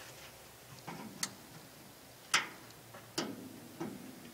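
A few sharp electrical clicks and snaps, about five spread over the few seconds with the loudest in the middle, as a wire is touched to the Meyer plow's solenoid terminals to make sparks while testing the solenoid's grounding.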